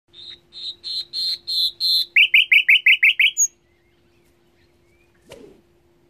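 Nightingale singing one phrase: six piping notes that grow louder, then a fast run of about eight lower notes, ending on one high note. A brief thump comes about five seconds in, over a faint steady hum.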